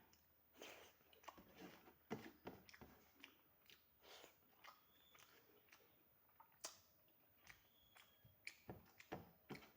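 A person chewing food close to the microphone, faint, with irregular wet mouth smacks and small clicks.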